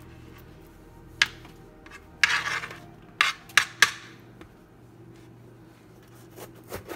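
A kitchen knife knocking and scraping on a plastic cutting board while onion is cut and pushed together: a single sharp knock, a short scrape, then three quick knocks, with a few softer taps near the end.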